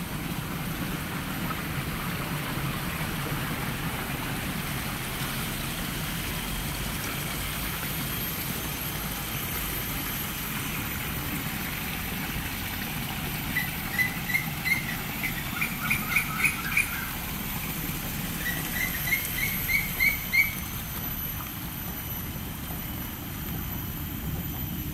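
Steady splashing of a fountain's stream of water pouring from a statue's jar into a pool. Past the middle a bird calls in two runs of quick repeated chirps.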